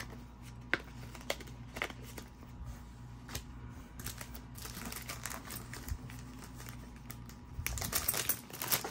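Fingers handling a clear plastic coin sleeve to get a silver round out: scattered small clicks and crinkles of plastic, busier near the end.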